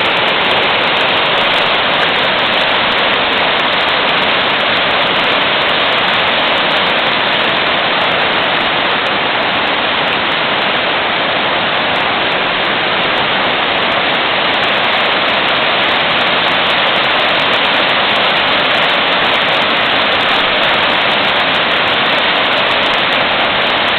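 Small whitewater rapids rushing over rocks in a creek: a loud, steady rush of water.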